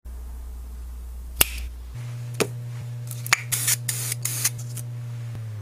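A spray-paint can hissing in several short bursts over a stencil, after a few sharp clicks. Underneath runs a low steady hum that steps up in pitch about two seconds in.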